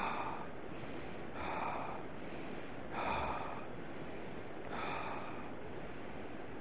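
A man breathing deeply in and out, about four slow breaths about a second and a half apart.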